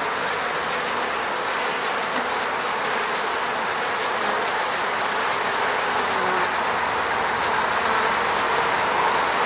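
Many honeybees buzzing around their hive: a dense, steady hum.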